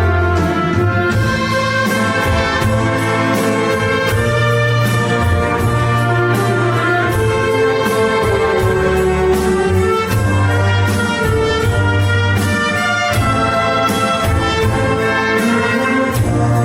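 Wind orchestra playing an arrangement of Korean popular songs, brass to the fore with trumpets and trombones over a steady low bass line.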